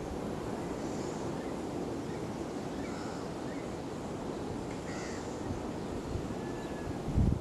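Wind rumbling on the microphone, with short bird calls about every two seconds and a brief low thump near the end.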